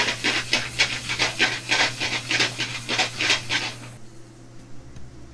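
Sliced bell peppers and onions sizzling in a metal sauté pan on a gas burner as the pan is shaken back and forth, a swishing sizzle about four times a second. It stops suddenly about four seconds in.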